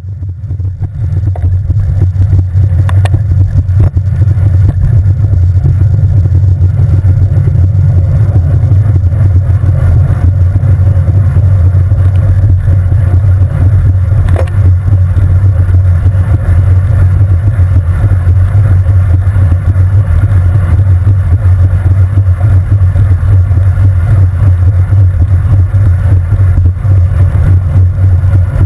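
Heavy, steady low rumble of wind buffeting and road vibration on a handlebar-mounted camera as a road bicycle rides fast on a wet road in the rain, fading in over the first second or two.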